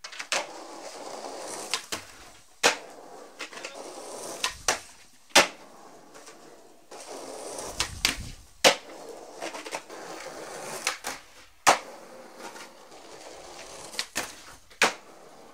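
Skateboard wheels rolling on rough pavement, broken by repeated sharp clacks of tail pops, landings and boards and trucks striking a concrete ledge and a wooden picnic bench.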